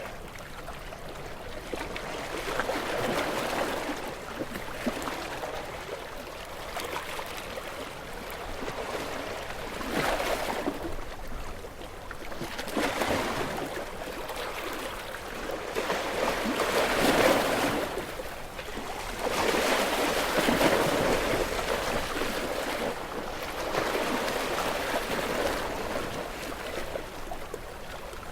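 Sea waves breaking against rocks: a rushing wash of surf that swells and falls back every few seconds, the biggest surge about two-thirds of the way through.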